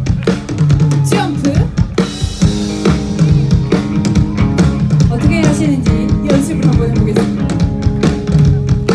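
Rock band playing live: a steady drum kit beat with bass and sustained instrument notes.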